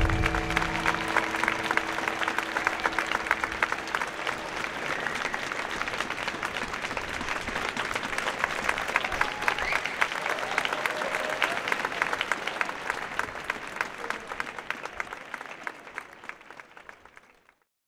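A large audience clapping, a dense patter of many hands, slowly dying away and fading out near the end.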